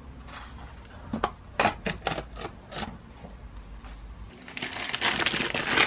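A paper page being torn off a tear-off daily calendar in a series of short, crisp rips. Near the end a steadier hiss of noise builds up.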